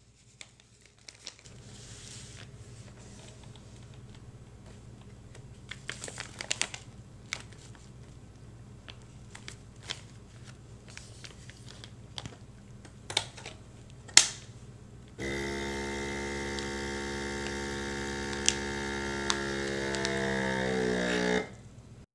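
Plastic vacuum-sealer bag crinkling as a steak is slid in and the bag is set into the sealer, with a sharp click about two-thirds through. Then the Inkbird Plus vacuum sealer's pump runs with a steady hum for about six seconds as it draws the air out of the bag. Its pitch rises near the end as the bag pulls tight, and it stops suddenly.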